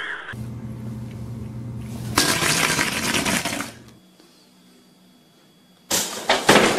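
A pop-up toaster springs up with a sudden loud clack near the end, after a few seconds of quiet. Before that there is a steady low hum and then a louder stretch of noise from another source.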